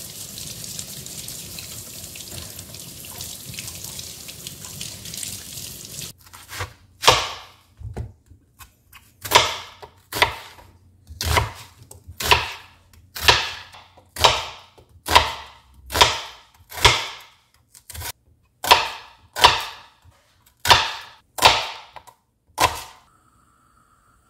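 Kitchen tap water running into a sink for about six seconds, then a knife slicing an onion on a plastic cutting board, one cut about every second, stopping shortly before the end.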